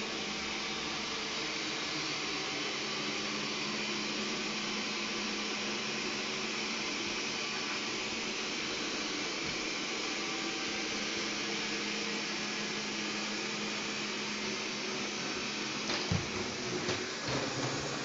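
Xiaomi Mi Robot Vacuum running as it cleans a hard floor: a steady whir of its suction fan and brushes with a low hum underneath. A few light knocks come near the end.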